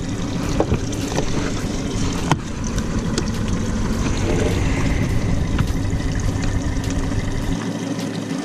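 A steady low rumble and hum, with scattered light clicks and knocks; the deepest part of the rumble drops away near the end.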